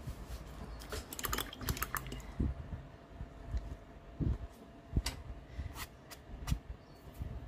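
Scattered light clicks and taps from a paintbrush being handled and wiped on a cloth at a wooden worktable, with a quick cluster about a second in and single taps after.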